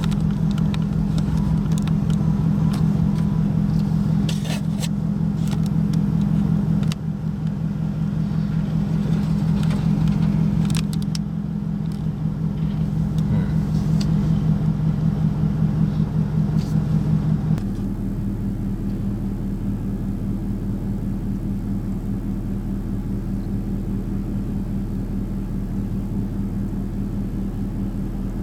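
A motor vehicle's engine running with a steady low drone, likely heard while driving. The drone changes abruptly about two-thirds of the way through, and a few faint clicks sound early on.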